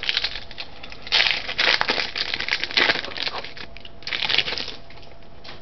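Plastic card-pack wrapper crinkling as a pack of football cards is opened. There is a long stretch of crackling from about a second in, and a shorter one about four seconds in.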